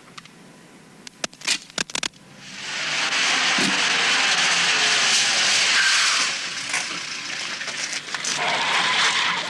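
A quick burst of about five sharp gunshot cracks, followed by a loud, steady rushing hiss that lasts several seconds and dips briefly near the end.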